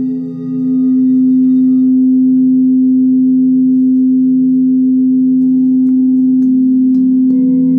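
Singing bowls ringing in long, steady sustained tones, with new tones joining in about five and a half and seven seconds in.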